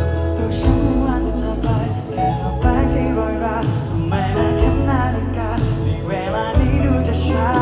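Male vocalist singing live into a handheld microphone over band accompaniment with a steady bass line; his held notes waver with vibrato.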